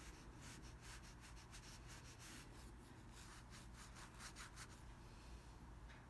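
Faint rustle of a paintbrush rubbing over hanji paper in quick short strokes as green paint is worked into a lotus leaf, with a pause near the middle, over a low steady hum.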